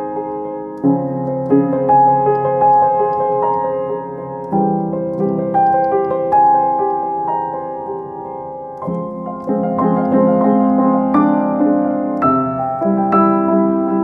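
Slow piano music: sustained chords that change every few seconds, with single notes struck over them and left to ring.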